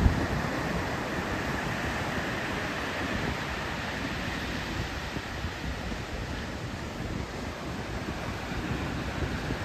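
Steady wash of small surf, 2–3 ft waves, breaking on a sandy beach, with some wind rumbling on the microphone.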